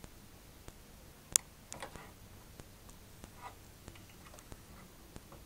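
Small clicks and knocks of RCA cable plugs being handled against the back of a TV, with one sharp click about a second and a half in. Faint ticking throughout.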